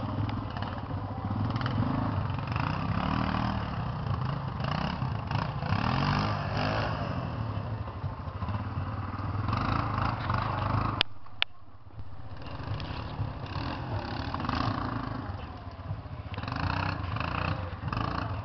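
ATV (quad bike) engine revving up and down as it climbs a steep slope under load. The sound cuts out briefly about eleven seconds in, with two sharp clicks.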